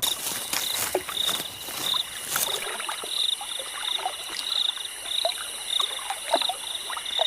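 Desert insects chirping: a short trilled chirp repeating about every two-thirds of a second over a steady high-pitched buzz, with scattered faint ticks and clicks.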